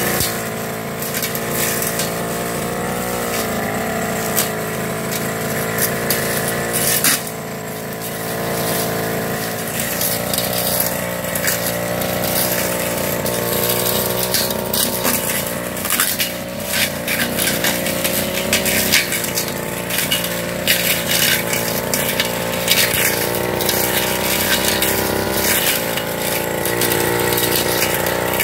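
Backpack brush cutter's small petrol engine running at high revs while cutting weeds, its pitch wavering as the load changes and dropping briefly about seven seconds in. Frequent sharp ticks and clatter run through the engine note.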